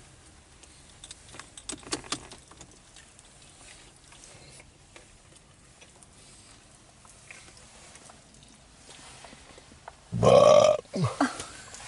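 Faint mouth sounds of a man chewing a buffalo wing, then one loud burp about ten seconds in.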